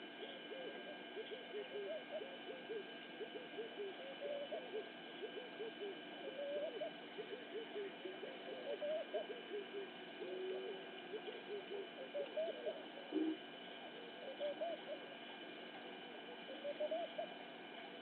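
A chorus of animal calls: many short rising notes, several a second and overlapping, over a few steady high tones.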